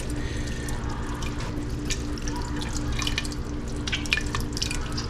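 Canned whole tomatoes being squeezed and crushed by hand in a pot of sauce: irregular wet squelches and drips, over a steady low hum.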